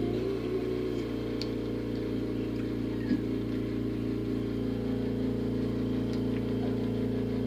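A steady low mechanical hum, like a small motor running, with a faint click about three seconds in.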